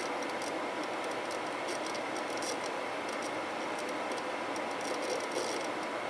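Twin cooling fans of a Zalman cooler on a GTX 750 Ti graphics card running: a steady rush of air with a faint steady whine, and irregular faint high ticks.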